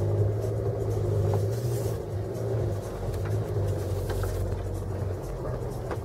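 Car engine running at low revs and the cabin rumbling as the car creeps along a rough forest dirt track, heard from inside the car. A few small knocks and rattles come through, and the low hum eases a little about five seconds in.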